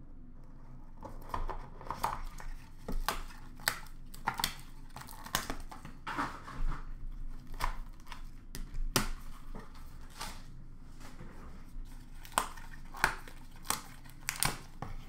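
A trading-card box being opened by hand: the cardboard tears and the wrapping crinkles in an irregular run of short rustles and snaps.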